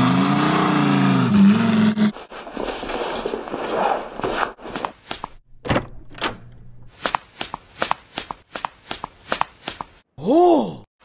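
Footstep sound effects: a steady run of short taps, about two a second, starting around five seconds in. It is preceded by a pitched sound that holds a few steady tones for about two seconds, and broken near the end by a short tone that rises and then falls.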